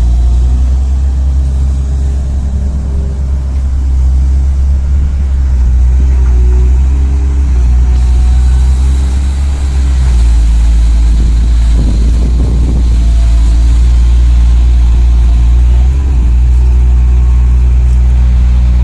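Simulated diesel engine sound from radio-controlled construction models, a steady low idle with a louder revving stretch about twelve seconds in.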